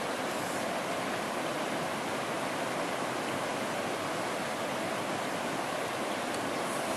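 Rocky stream rushing over stones: a steady, even rush of water.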